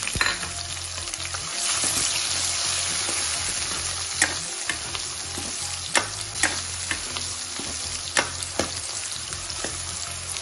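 Chopped onions sizzling in hot oil with garlic in a steel kadai, frying for a dal tadka. The sizzle swells for a couple of seconds near the start. A steel ladle stirring them clinks sharply against the pan about five times.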